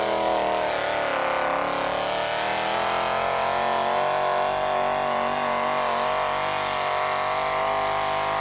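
Pulling tractor's engine running hard under load as it drags the weight sled down the track. Its pitch dips slightly about a second in and then holds steady.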